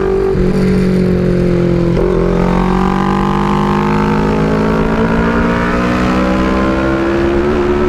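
Motorcycle engine running steadily under way, its pitch drifting slowly, with brief dips about two seconds in and near the end.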